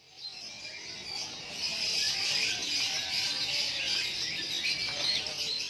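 Many caged songbirds chirping and twittering at once, a dense chorus of short high calls that grows louder about a second and a half in.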